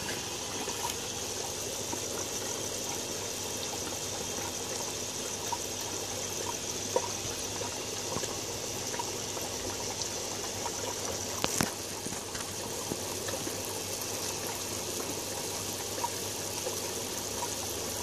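Steady splashing and trickling of water pouring from a pipe into an aquaponics tank. One short click partway through.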